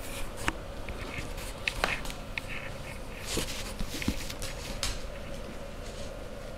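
Two puppies playing and wrestling at close range on a cushion: scattered scuffles, rustles and short clicks of paws and mouths on fabric, over a faint steady hum.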